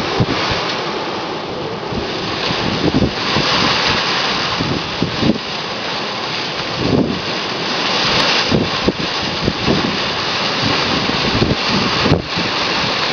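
Strong bora wind gusting hard, a steady rushing hiss with frequent low thumps where the gusts buffet the microphone.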